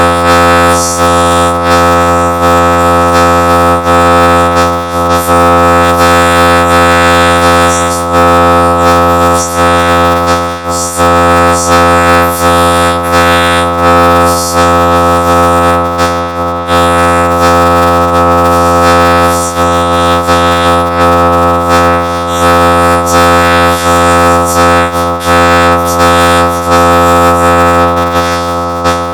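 A children's sing-along song run through a heavy audio effect that smears it into a loud, steady droning chord of held synth-like tones, with flickering hiss above.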